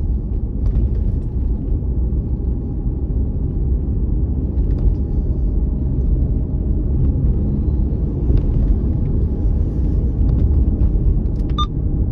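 A car driving on city streets: a steady low rumble of engine and road noise.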